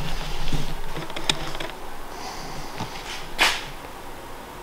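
Handling noise from a camera carried by hand: scattered clicks and knocks, then a brief rustling swish about three and a half seconds in.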